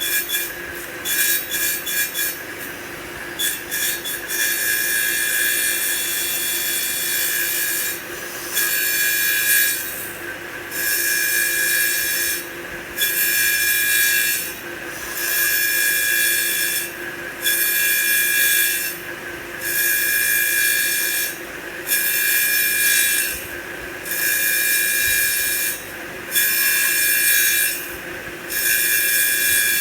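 CNC wood lathe cutting a wooden blank: a loud, high-pitched cutting sound that comes in passes of about a second and a half, each broken by a short pause, about every two seconds, with a steady hum underneath. The sound is choppier for the first few seconds.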